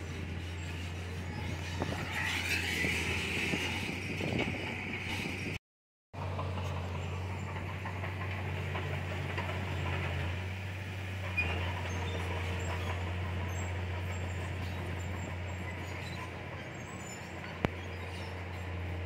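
Komatsu D31PX crawler bulldozer's diesel engine running steadily under work, a constant low drone with a higher hiss above it. The sound cuts out completely for about half a second a little over five seconds in, and a single sharp click comes near the end.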